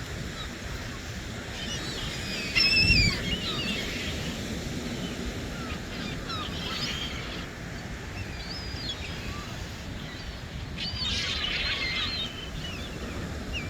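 Birds calling in scattered bursts of short, curving chirps and cries, over a steady low background rumble, with a brief loud low thump about three seconds in.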